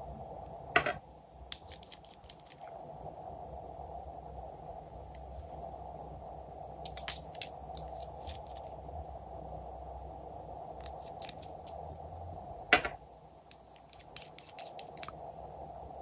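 Small plastic toy pieces being handled and pulled apart, giving scattered sharp clicks and taps, a quick cluster about seven seconds in and one loud snap near the thirteen-second mark, over a faint steady hum.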